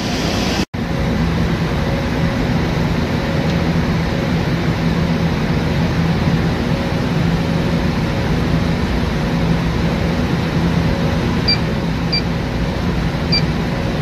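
Air-conditioning unit running, its Copeland scroll compressor giving a steady hum. From about 11 seconds in, an electronic leak detector held at the repaired line gives a few short, high beeps, spaced irregularly.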